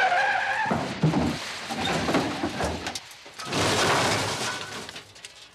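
Comedy sound effects: a tyre screech that cuts off just under a second in, then rough, noisy skidding and clatter, with a second loud burst of noise about three and a half seconds in.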